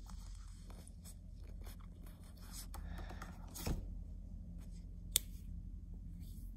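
Handling noise from a hand-held phone camera: faint rustling and scraping, a soft thump about three and a half seconds in and a sharp click about five seconds in, over a steady low room hum.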